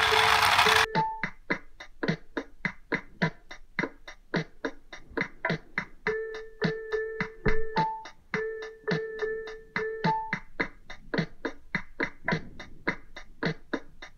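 Background music: a quick, steady electronic beat with short repeated keyboard notes. A loud hiss-like burst of noise opens it, lasting under a second.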